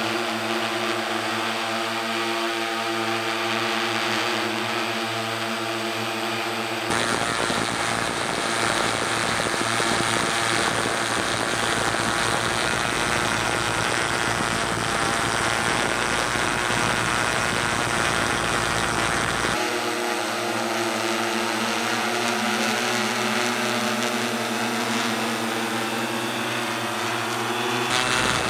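Tarot T960 hexacopter's six electric motors and propellers humming steadily in flight. About seven seconds in the sound switches abruptly to a louder rushing rotor noise. It switches back to the steady hum about twenty seconds in.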